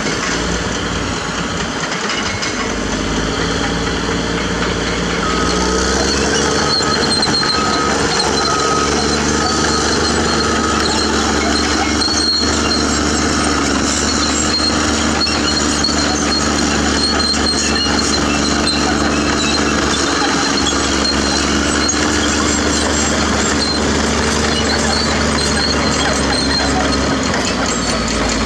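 A CAT D6R bulldozer's diesel engine revs up and then runs steadily under throttle. For several seconds a reversing alarm beeps at about one beep a second.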